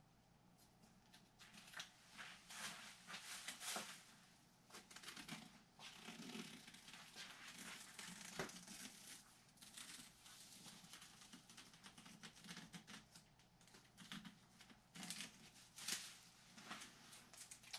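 Adhesive tape being peeled off carbon-fibre fabric: faint, irregular ripping and crinkling in short bursts with brief pauses between.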